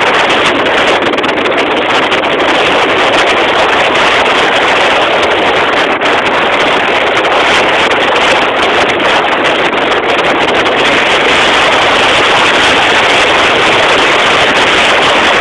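Loud, steady rush of wind and road noise from a moving car, heard at its side window.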